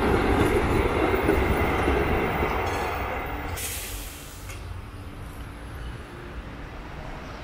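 Articulated electric tram running past on street rails and pulling away, its rolling noise fading over the first four seconds. A short high hiss comes about halfway through, then only faint street background remains.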